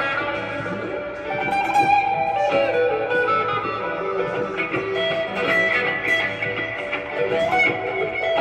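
Acoustic guitar played through an amplifier, picking a continuous melodic line of single notes, some held and some sliding between pitches.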